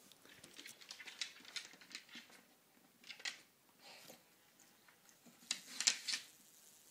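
A pug's short sniffs and snorts as it hunts a fly, in quick runs: a rapid series in the first two seconds, a couple of single ones, then the loudest cluster near the end.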